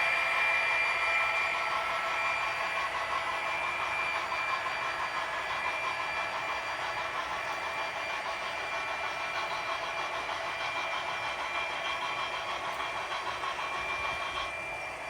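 HO scale model diesel locomotives running, their engine sound coming through small onboard speakers with a few steady high tones and little bass, fading gradually.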